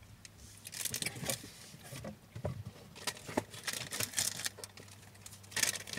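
Snack packaging being handled: plastic wrappers crinkling and rustling in a cardboard snack box, with scattered light clicks and taps.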